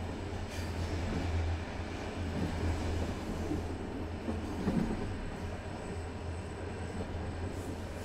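Moving passenger train heard from inside the carriage: a steady low rumble and hum of the running train, with a brief louder moment about halfway through.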